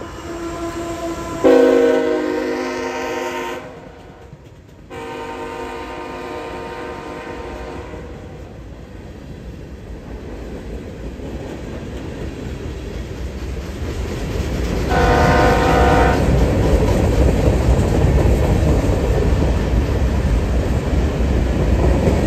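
Freight locomotive's multi-note air horn sounding blasts for grade crossings: a long blast about a second and a half in, another about five seconds in that fades away, and a short blast about fifteen seconds in. Underneath, the rumble and clickety-clack of the passing manifest freight cars grows louder through the second half.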